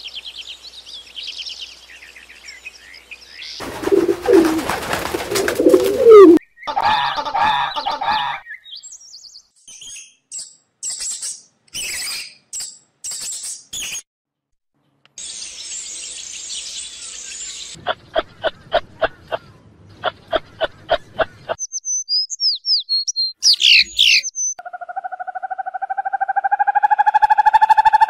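A run of short, changing animal and bird sounds, one after another: high chirps and whistles, a buzzing stretch, a fast even train of clicks, and near the end a long rising call with a clear pitch.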